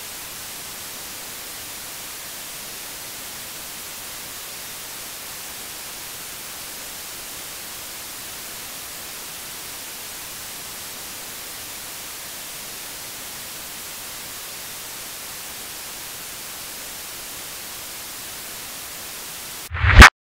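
Steady static hiss like a dead video signal, as the feed has cut out. Just before the end a brief, very loud burst breaks in, and then the sound cuts off suddenly.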